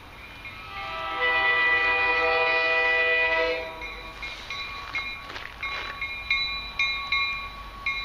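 MBTA commuter rail locomotive's air horn sounding one long chord of about three seconds, starting just under a second in. After it, as the train pulls in, a steady high squeal with a ringing repeated about twice a second.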